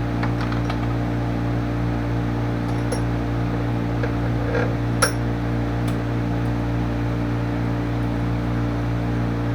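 Steady hum of a running workshop machine motor, with a few light metallic clinks and one sharper clink about five seconds in.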